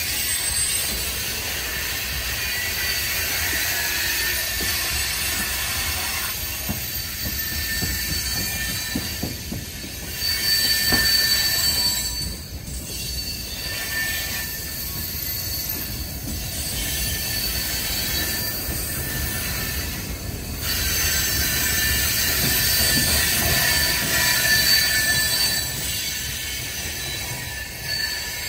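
Freight train of tank cars rolling past, steel wheels squealing in several steady high-pitched tones over a low rumble.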